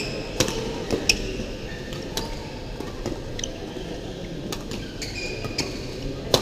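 A badminton rally: sharp smacks of racket strings on the shuttlecock at irregular intervals, a second or so apart. Short high squeaks of court shoes on the floor run between them, over the steady background noise of a busy sports hall.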